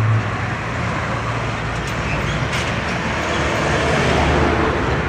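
Diesel cargo trucks passing close on a road: a low, steady engine drone with road and tyre noise, swelling around four seconds in as a second truck goes by near the microphone.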